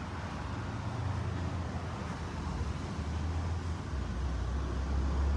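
Car interior noise heard from inside the cabin: a steady low engine hum under an even hiss of road and traffic noise.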